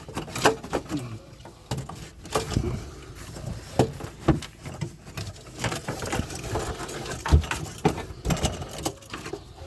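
Irregular clunks, knocks and scrapes of the plastic EVAP canister assembly being worked and slid out from behind the wheel well-liner.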